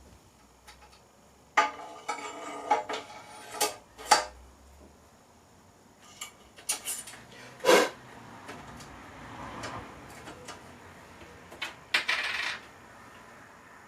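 Metal bicycle headset parts and fork clinking, knocking and scraping as they are handled and fitted into the frame. There are scattered sharp knocks with a rattling run early on and a short scrape near the end.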